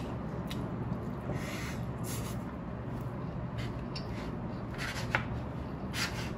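Eating noodles: chewing, with a wooden fork stirring and scraping in a paper cup of ramen. Short soft rustles and scrapes come every second or so, and a sharper click about five seconds in, over a steady low background hum.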